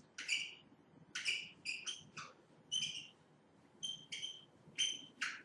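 Marker writing on a whiteboard: about ten short squeaky strokes, one after another, as the formula is written out.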